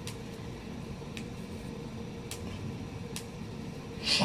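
Low steady room hum with a few soft, evenly spaced clicks of long acrylic nails tapping a phone screen, then a short louder brush of noise near the end.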